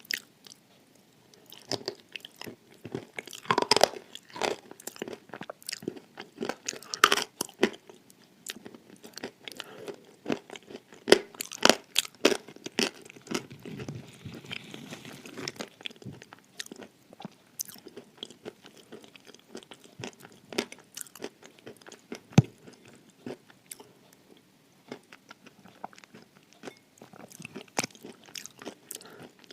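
Dry edible clay crunching between the teeth, heard close up: irregular sharp crunches and crackles of chewing, with a few louder bites.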